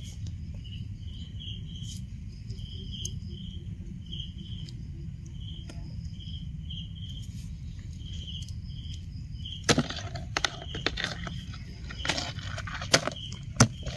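A steady series of short high chirps over a low rumble. From about ten seconds in come sharp crackles and snaps of footsteps on dry fallen leaves and soil as the camera moves.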